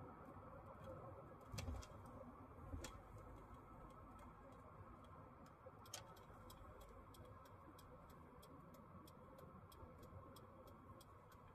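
Near silence with faint, regular ticking, about three ticks a second from midway on, and a few scattered louder clicks before that.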